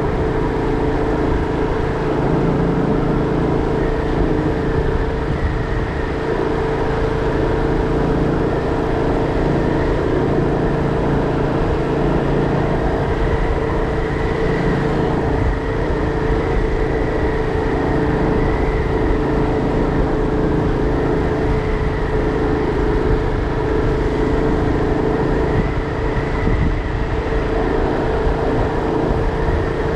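Motor vehicle engine running at a steady speed, with a constant hum and heavy road and wind rumble.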